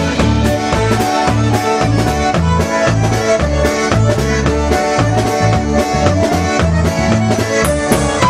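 Live polka music with a button concertina taking the lead melody over an alternating oom-pah bass and a steady drum beat.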